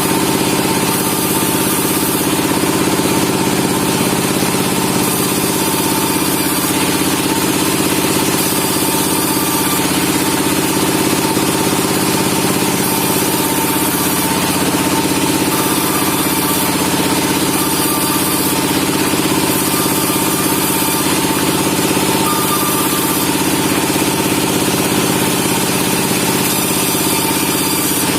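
Sawmill machinery running steadily: an engine-driven saw keeps up a constant hum of several steady tones, without speeding up or slowing down.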